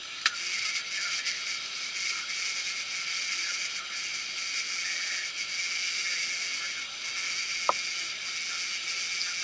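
A steady high hiss, with two sharp clicks: one just after the start and one near the end.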